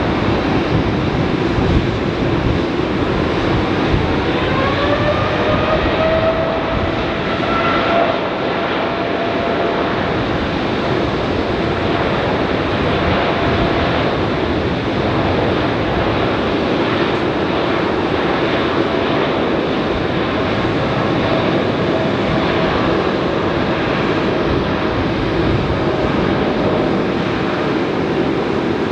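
Boeing 787 Dreamliner's twin jet engines spooling up. A whine rises in pitch a few seconds in, then holds steady over a loud rumble as the airliner rolls along the runway.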